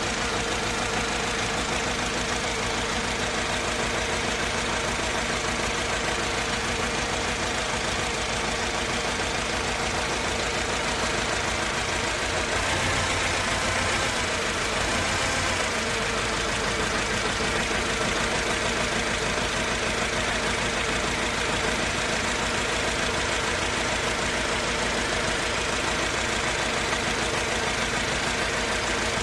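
Mercedes-Benz C200 four-cylinder petrol engine idling steadily, run as a test while the owner hunts down a misfire and rough idle that he says sounds as if it runs on only two or three cylinders.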